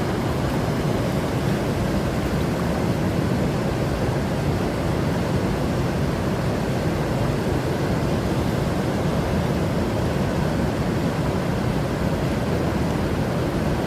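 Steady rushing of a river's flowing water, an even, unbroken noise.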